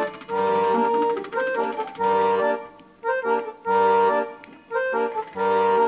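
Background music: a repeating melody of held notes over a low bass note that returns about every second and a half.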